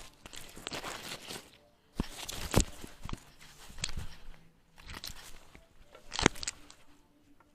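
Rustling and knocking from a small camera worn by a walking cat: fur and strap rubbing on the microphone, with irregular sharp knocks, the loudest about two and a half seconds in and again about six seconds in.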